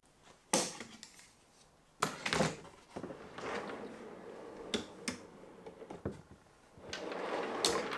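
One-handed bar clamps being released off a drawer front with sharp clicks and knocks, then a drawer pulled out on metal ball-bearing side-mount drawer slides, giving a rolling, rattling slide noise.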